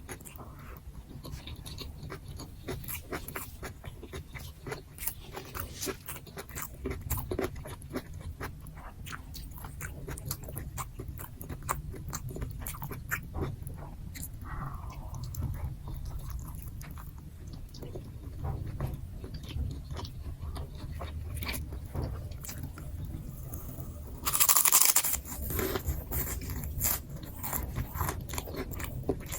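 Close-miked eating sounds from a mukbang of nasi gila: steady chewing with many small wet mouth clicks and crunches over a low steady hum. About 24 seconds in there is one brief, louder burst of harsh noise.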